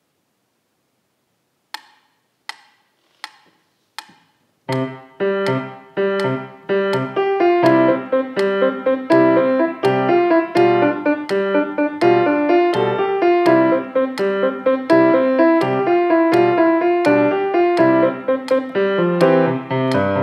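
Silence, then four metronome clicks at 84 beats a minute count in, and a grand piano starts a lively Irish jig about five seconds in. The metronome keeps clicking on each beat under the piano.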